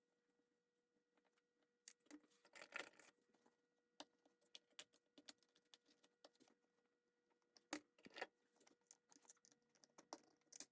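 Faint, scattered clicks and short light rattles of small hard objects being handled, starting about two seconds in, over a very quiet background.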